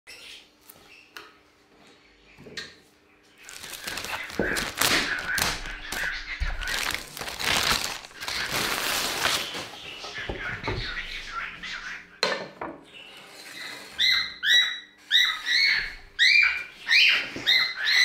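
A wooden board scraping and knocking against a wooden tabletop as it is handled, then, in the last few seconds, a pet bird calling over and over, about two calls a second.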